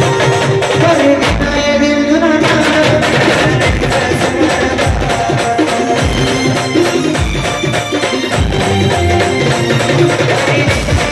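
Loud band music playing an Adivasi folk tune, with a pounding drum beat and busy percussion.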